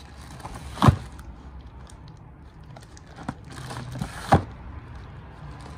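CGC graded comic slabs in plastic sleeves being handled and shuffled: the sleeves crinkle twice, each time ending in a sharp knock of hard plastic, about a second in and again a little past four seconds.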